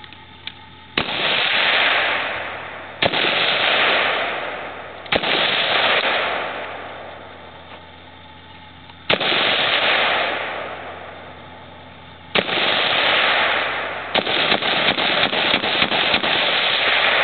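AR-15-style rifle fired: five single shots a few seconds apart, each followed by a long rolling echo, then a rapid string of about a dozen shots at roughly four a second.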